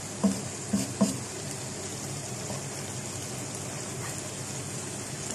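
Chicken pieces frying with a steady sizzle in a frying pan while a wooden spatula stirs them, knocking against the pan three times in the first second or so.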